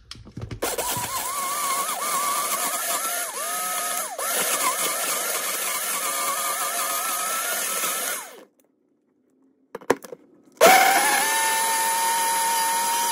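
Countertop blender blending a thick smoothie with a little ice: the motor runs for about eight seconds with its pitch wavering and dipping, is switched off for about two seconds, then runs again with a steadier, slowly rising pitch.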